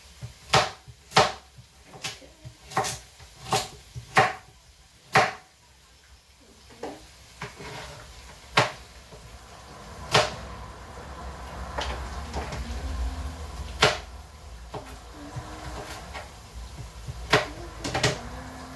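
Sharp knocks of kitchen utensils: about eight quick ones in the first five seconds, then a few scattered ones.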